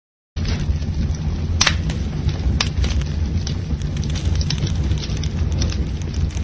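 Fire sound effect: a low rumble of burning flames with scattered sharp crackles and pops, cutting in suddenly just after a moment of silence.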